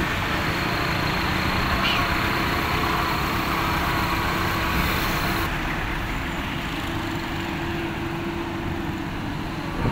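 Diesel engine of a small dump truck running steadily close by, a continuous low rumble. The sound turns a little quieter and duller about halfway through.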